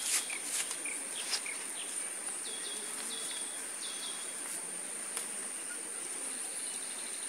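Steady high-pitched insect buzz, like a cricket or cicada, with a few sharp clicks in the first second and a half and several short chirps around the middle.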